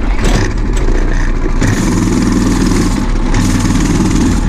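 Large engine running loud and steady close by, with a low hum, starting abruptly at the outset.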